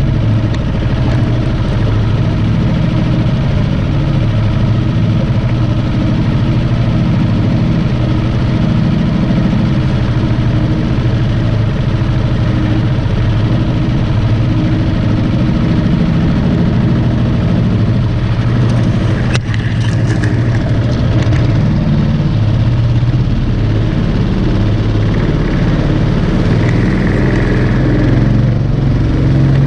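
212cc Predator single-cylinder four-stroke engine driving a Mudskipper longtail mud motor, running steadily under way as it pushes the canoe through the water. A single sharp knock sounds about two-thirds of the way through.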